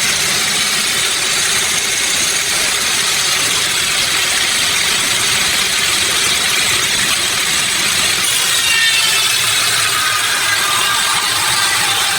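Sawmill machinery running steadily, a loud continuous noise; from about eight seconds in, a whine falls slowly in pitch.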